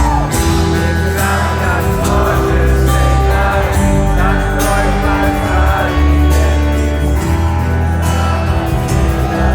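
Live rock band playing an instrumental passage of the song: a curving lead melody over sustained chords and a heavy, steady bass.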